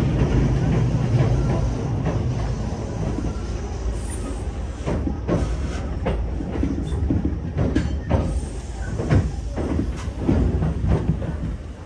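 Tobu Urban Park Line local train heard from inside the carriage while running: a steady low rumble of wheels on rail, with a series of sharp wheel clacks over rail joints from about four seconds in.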